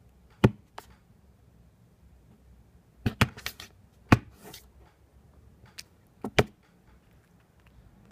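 A cat bumping and rubbing its head against the camera it sits in front of, giving a handful of sharp knocks with brief fur-brushing rustles. The knocks come singly at first, then as a quick cluster around three seconds in, and as a double knock near the end.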